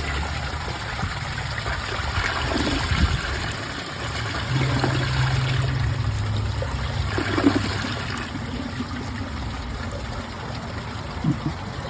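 Mansfield Summit dual flush toilet flushing: water rushing and gurgling down the bowl, then the tank refilling. The tank is overfilling, so it is not a normal flush.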